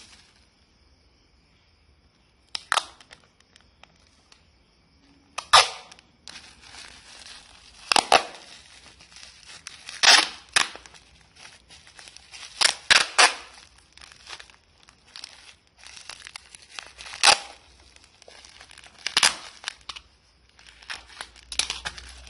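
A small parcel being wrapped by hand: about ten sharp tearing rips, spread unevenly, with crinkling of the wrapping material in between.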